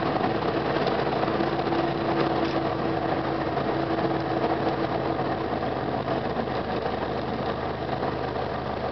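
Light single-engine plane's piston engine idling with its propeller turning slowly during the landing rollout, heard from inside the cockpit. A steady drone that eases slightly toward the end.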